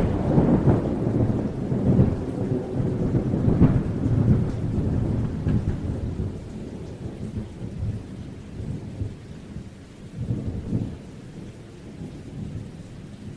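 Thunderstorm: thunder rumbling over rain, loudest in the first few seconds and then dying away, with one smaller rumble about ten seconds in.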